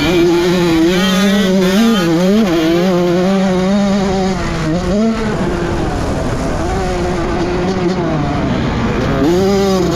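Honda CR85's two-stroke single-cylinder engine revving up and dropping back as the rider works the throttle and gears. The note eases off about halfway through and climbs again near the end.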